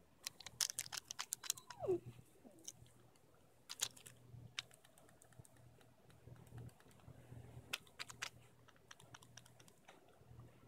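Bernese mountain dog puppies play-fighting on grass: faint, scattered light clicks and scuffles, with one short falling whine about two seconds in.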